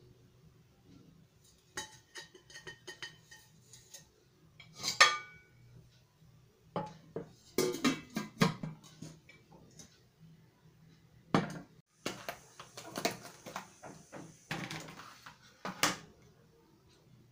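A cooking pot and its lid are handled on a wooden cutting board, giving scattered knocks and clinks and one loud ringing metal clank about five seconds in. More knocks follow, then a few seconds of rustling.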